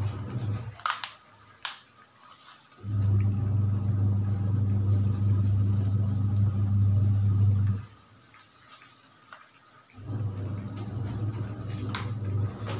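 Saucepan of water and greens simmering on an electric hotplate: a low electrical hum switches off about a second in, returns about two seconds later, then cuts out again for a couple of seconds near the middle. Faint bubbling and a few light ticks sit underneath.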